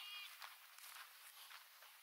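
Faint footsteps of a person walking, with a short high chirp at the very start.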